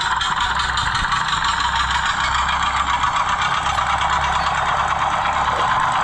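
The small engine of a miniature working-model cement concrete mixer running steadily, driving its gears and drum.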